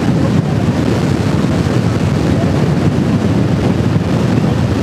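Steady wind rushing and buffeting over the microphone on a motorcycle at road speed, with the drone of the 2004 Harley-Davidson Fat Boy's engine buried underneath.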